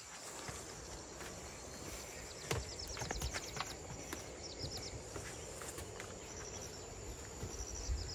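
Footsteps along a field path and onto a bamboo-slat platform, irregular soft thuds. Over them come several short bursts of rapid, high chirping trills.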